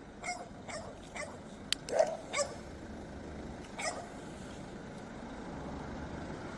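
A dog giving a string of short, faint yips, about six spread over the first four seconds, the loudest about two seconds in.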